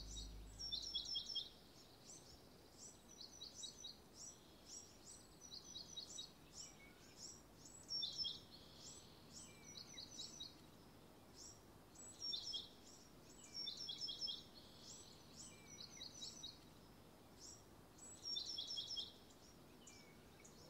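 Faint songbird song outdoors: short, high-pitched chirping phrases repeated every second or two. Background music fades out in the first second.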